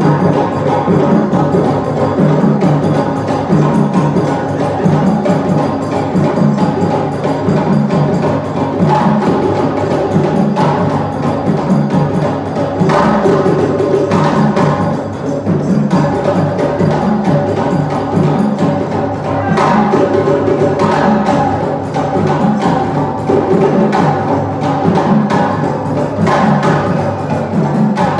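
African drums playing a steady, driving rhythm without a break.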